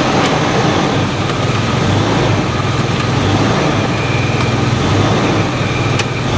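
Toyota 4Runner engine idling steadily, heard from beneath the car on a lift, while its low automatic transmission fluid level is checked at the pan's check plug.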